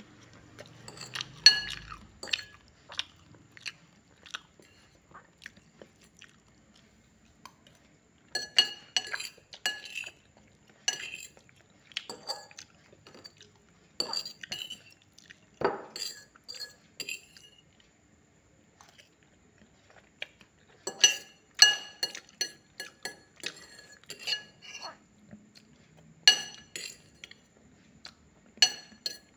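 Metal cutlery clinking and scraping against a plate in short clattering bursts separated by quiet pauses, with chewing of crispy fried chicken and noodles between them.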